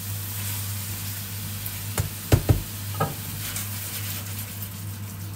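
Peppers, onion and pineapple sizzling in a stainless steel frying pan being stir-fried, over a steady low hum. A few sharp knocks come about two to three seconds in as the pan and spatula are worked.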